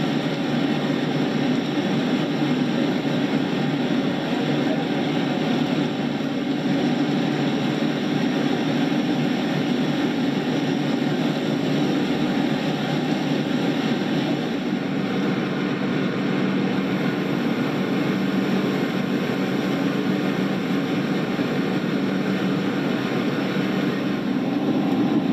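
Fire engine's pump running steadily under load, a constant engine drone mixed with the rush of a fire hose spraying water onto a truck.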